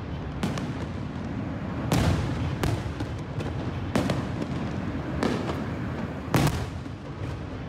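Fireworks going off: about half a dozen sharp bangs over a steady low rumble of more distant bursts, the loudest about six seconds in.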